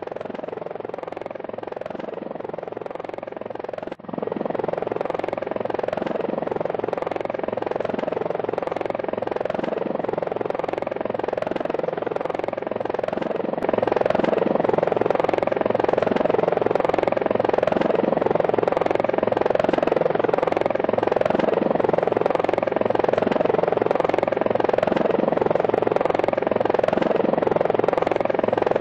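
Helicopter rotor and engine noise, a steady drone with a fast, even beat. It drops out briefly about four seconds in and gets louder about fourteen seconds in.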